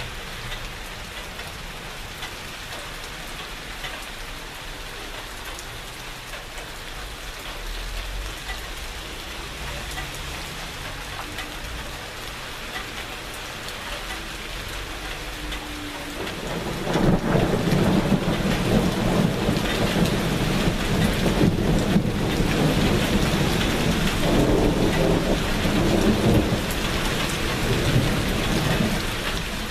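Steady rain falling. About halfway through, a long roll of thunder comes in and rumbles for about twelve seconds, easing off near the end.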